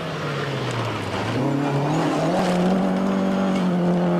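Rally car engine at speed on a gravel stage: the revs fall for about the first second, then climb again about a second and a half in and hold high as the car accelerates, with gravel and tyre noise under it.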